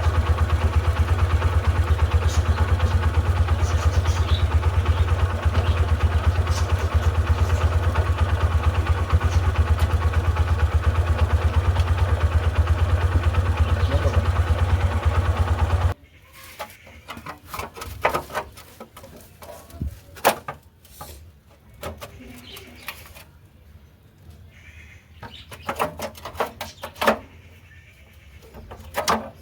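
Suzuki GS150R's single-cylinder four-stroke engine running steadily, then stopping abruptly about sixteen seconds in. After that come scattered clicks and knocks.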